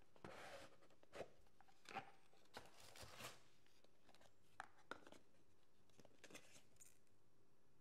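Paperboard gift box and a folded paper card being handled: a soft scraping slide at the start, then scattered light taps, clicks and paper rustles.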